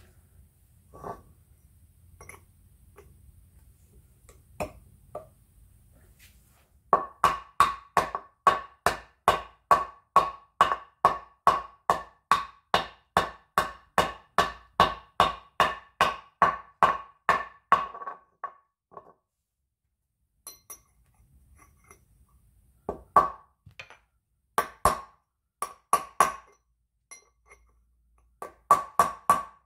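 Hammer taps driving a freezer-cold bearing race into a heated aluminium diff screw adjuster. A few scattered taps, then a steady run of about three sharp, ringing taps a second for some ten seconds, then short groups of taps near the end as the race seats.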